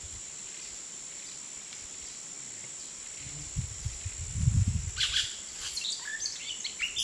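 Outdoor woodland ambience: a steady, high-pitched insect drone over a light hiss. Low rumbles come in about halfway through, then several short bird chirps near the end.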